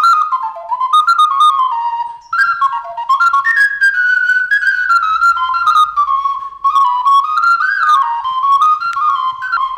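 Handmade Sicilian friscalettu, a small end-blown cane duct flute, playing a melody in quick, ornamented runs of high notes, with a couple of short breaks for breath.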